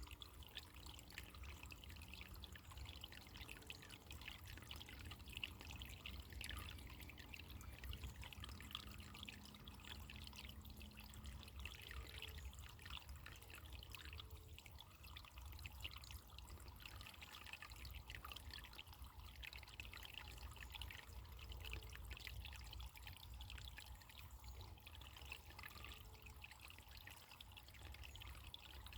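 Running water trickling and splashing steadily and faintly, like a small stream or brook.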